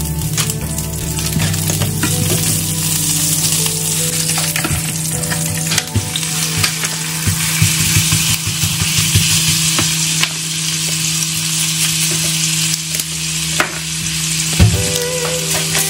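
Sliced onion and beef mince sizzling in hot oil in a nonstick wok, a silicone spatula stirring and tapping against the pan with a scatter of sharp ticks in the middle.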